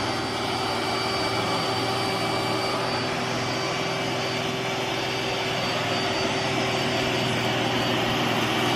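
iRobot Roomba s9+ robot vacuum running at max power, a steady whirring hum of its suction motor and brushes, rising slightly toward the end.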